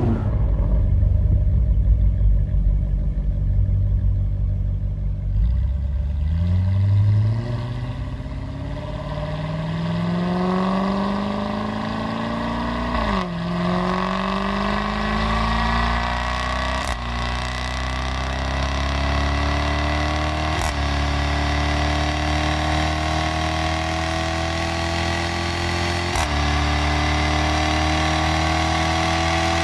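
Jaguar F-Type SVR's supercharged 5.0-litre V8 running with a loud, low rumble, then from about six seconds in accelerating hard through the gears. The pitch climbs steadily and dips briefly at each of four upshifts, each marked by a short crack, before climbing again.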